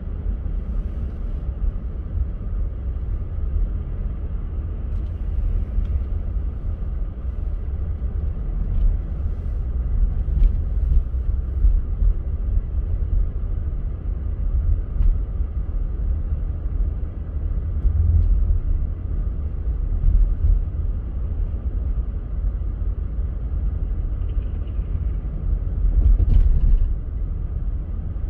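Car driving, a steady low road and engine rumble with a few faint clicks along the way.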